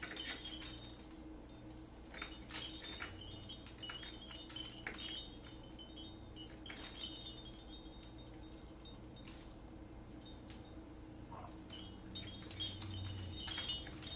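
Small metal pieces jingling and clinking in irregular bursts, some a few seconds apart, with short quieter spells between.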